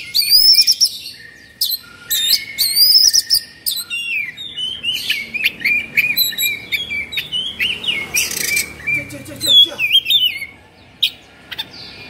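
Oriental magpie-robin (kacer) singing a fast, varied song of sharp whistles, quick rising and falling chirps and harsh notes, with a short pause near the end. This is the agitated, 'kongslet' singing of an excited bird.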